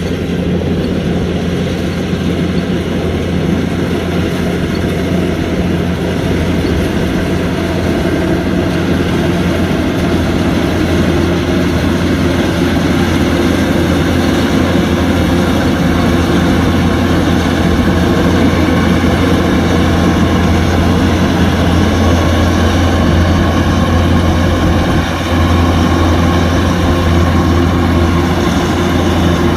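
Kubota DC-105X combine harvester's diesel engine running steadily with a constant low drone, with a brief dip in level about 25 seconds in.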